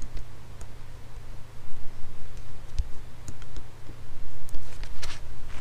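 Scattered light clicks and scratches of a knife being worked around a flexible cable to cut through its outer sheath, with a denser cluster of clicks about five seconds in, over a steady low hum.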